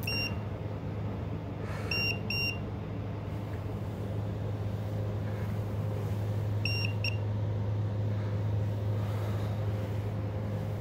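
Handheld Meterk EMF meter giving short, high double beeps: a pair at the start, another about two seconds in and a third about seven seconds in. A steady low hum runs underneath.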